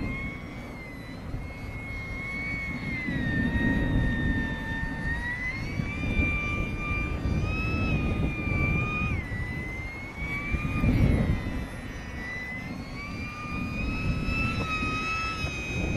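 Electric motor and propeller of an OMP Hobby S720 micro RC airplane whining in flight, the pitch slowly rising and falling. Strong gusty wind buffets the microphone underneath.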